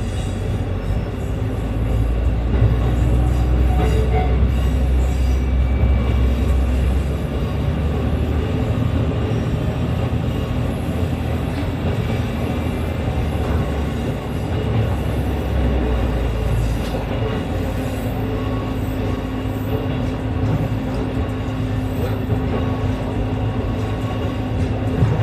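Diesel railcar running along single-track line, heard from inside at its rear end: a steady low engine drone under wheel-on-rail noise. About 16 seconds in, the engine note changes and a steady hum comes in.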